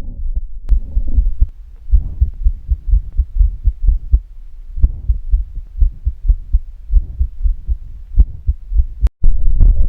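Recorded human heart sounds: a steady run of low, dull beats with a murmur between them, typical of a systolic murmur. A brief cut about nine seconds in, then a louder recording with more hiss around the beats begins.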